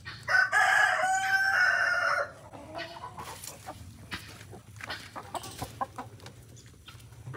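A rooster crows once, for about two seconds, then hens cluck softly in short, scattered calls.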